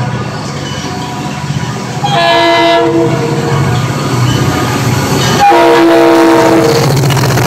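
Florida East Coast Railway diesel freight locomotive sounding its horn as it passes close by: a short blast about two seconds in, then a long blast from about five and a half seconds, a chord of several tones over the steady low rumble of the engine.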